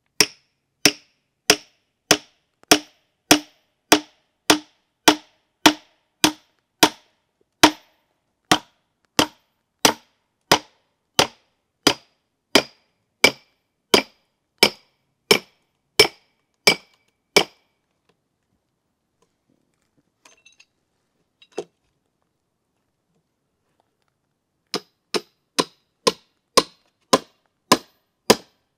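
A hammer striking steel wedges driven into a cedar log to split it lengthwise: a long, even run of sharp metal-on-metal strikes, about one and a half a second. The strikes stop for several seconds and then resume a little faster near the end.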